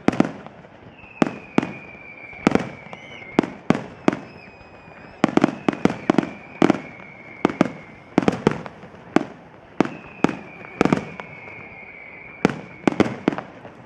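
Fireworks display: aerial shells bursting in sharp bangs, irregularly about one to two a second and sometimes in quick clusters, each trailing off briefly. A thin high whistle comes and goes between the bangs.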